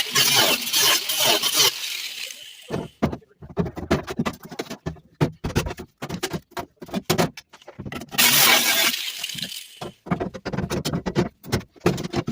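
Power tools cutting and grinding the steel floor pan: a spell of grinding hiss at the start and another about eight seconds in, with rapid sharp metallic clinks and clanks between them.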